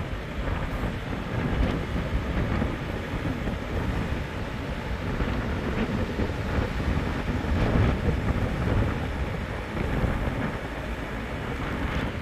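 Vehicle driving over beach sand, heard from inside: a steady low rumble of engine and tyres with wind buffeting the microphone.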